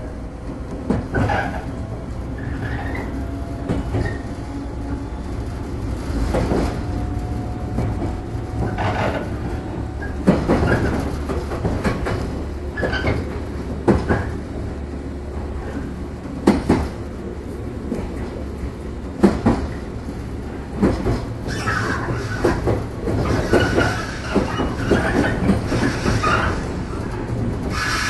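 Inside a JR 115-series electric train's motor car, running: a steady low rumble with irregular clacks of the wheels over rail joints and points, and some wheel squeal toward the end.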